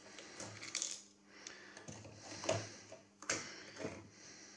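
Hands working a metal power-supply regulator module loose: scattered clicks, taps and scrapes of metal parts being handled, the sharpest about three and a half seconds in.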